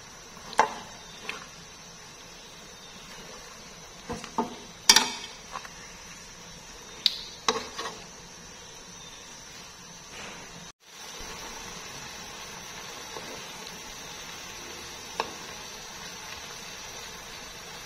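Sauce simmering and sizzling in a nonstick pan around chicken leg quarters, a steady faint hiss. Over the first half come a series of sharp clicks and taps of metal tongs against the pan as the pieces are turned; after a brief break the simmer goes on steadily, with a single spoon tap near the end.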